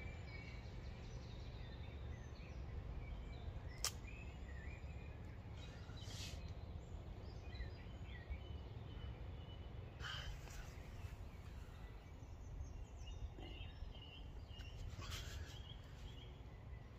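Quiet woodland ambience: faint scattered birdsong over a low steady rumble, with one sharp click about four seconds in.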